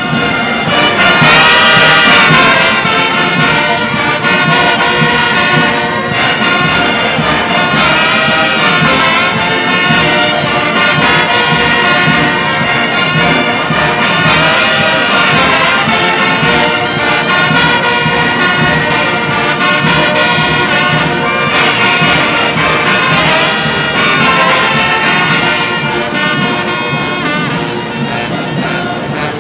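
Brass band playing, trumpets, horns and sousaphones sounding together in sustained chords; it comes in loudest about a second or two in and carries on steadily.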